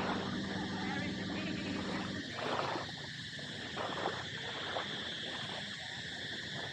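Outdoor beach ambience: a steady low hum that cuts off about two seconds in, under a steady high-pitched buzz.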